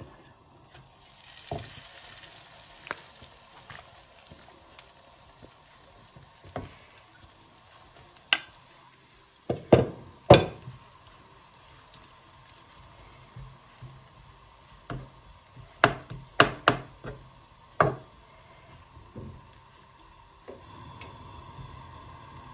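Grated potato and egg mixture going into hot oil in a nonstick frying pan and sizzling, the sizzle strongest just after it goes in. A metal spoon clicks and scrapes against the pan a dozen or so times as the mixture is spread into patties.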